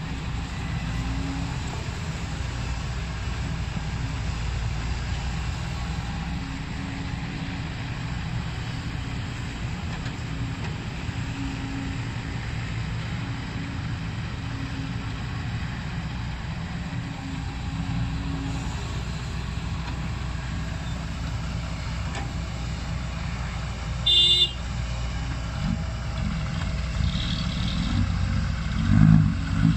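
Diesel engine of a Kobelco SK140 hydraulic excavator running steadily as it works. Well into the stretch comes one brief high-pitched toot, and near the end the engine surges louder several times.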